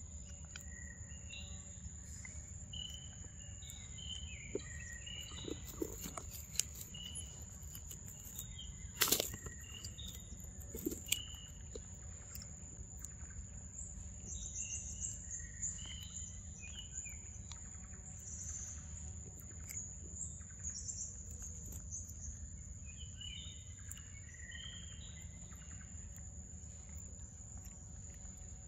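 Forest ambience: a steady high insect drone with birds chirping in short clusters. Over it come a few sharp wet clicks and smacks from a monkey biting and chewing mango, the loudest about nine seconds in.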